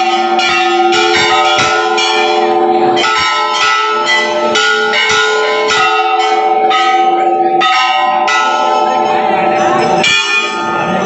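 Hanging temple bells rung over and over, two or three strikes a second, their tones at several pitches overlapping into a continuous clangour. The ringing stops about ten seconds in, leaving crowd chatter.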